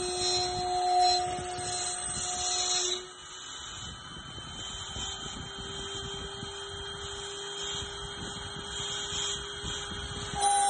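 Water-cooled 1500 W spindle of a 6040 CNC router running with a steady high whine as it cuts outlines into a wooden cylinder on the rotary axis. About three seconds in, the level drops and the note shifts slightly higher.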